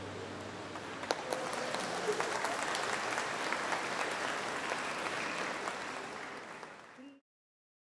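A crowd of guests applauding, many hands clapping together, fading out near the end and then stopping.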